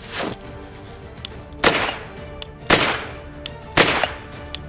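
Three single shots from a Grand Power Stribog SP10A3 10mm roller-delayed carbine, fired about a second apart, each with a short echoing tail, over background music.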